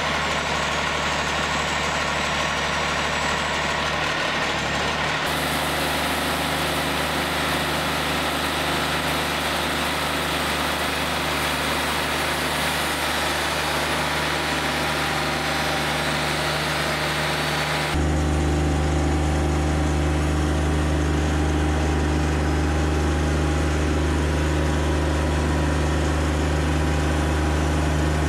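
Wood-Mizer LT40 Wide portable sawmill running steadily, its engine driving the band blade through a squared log. The sound changes abruptly about five seconds in and again about eighteen seconds in, the second time to a stronger low engine hum with less hiss above it.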